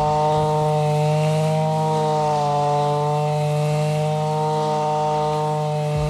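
Zenoah BCZ315 two-stroke brush cutter running steadily at high speed, its pitch sagging briefly about halfway through as the blade takes a load.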